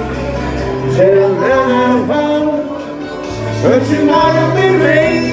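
A man singing karaoke into a microphone through the PA, over a recorded backing track with a steady bass line.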